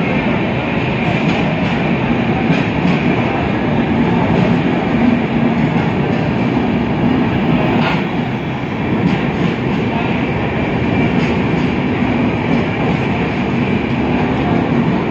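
Indian Railways Humsafar Express passenger coaches rolling along the platform: a steady rumble of wheels on the rails with light, irregular clicks, and one sharper knock about halfway through.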